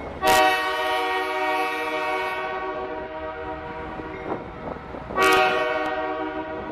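Canadian Pacific Holiday Train's diesel locomotive air horn sounding two long blasts, a chord of several notes, the second starting about five seconds in. Under it runs the rumble of the train's freight cars rolling past.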